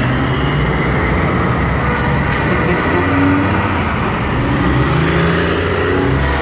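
Diesel engines of semi-truck tractors running low and steady as they drive past one after another.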